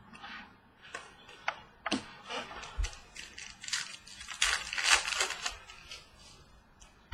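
Trading cards being handled and flicked through: irregular clicks and short scraping rustles as the cards slide over one another.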